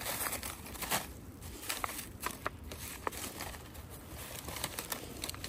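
Dry leaf litter on the forest floor crackling and rustling, with a string of irregular short clicks and crunches as it is stepped on and handled.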